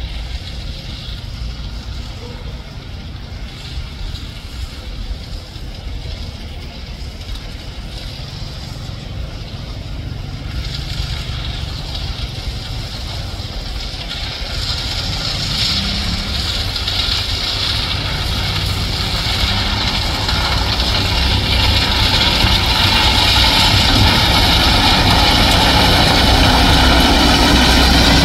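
Railway ballast regulator's diesel engine running as the machine approaches, getting steadily louder. Over the second half a growing hiss and grind comes in as its plough blades push the crushed-stone ballast along the track.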